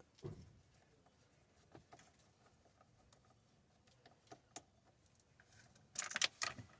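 Faint, scattered clicks of a screwdriver working screws out of a dashboard bracket. About six seconds in comes a quick run of sharper clicks and rattles, a screw dropping off the driver tip and bouncing down inside the dash.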